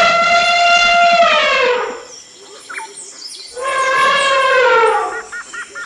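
African elephant trumpeting: two long, loud, horn-like calls, each holding steady and then falling in pitch as it ends, with a short pause between them. Small birds chirp briefly near the end.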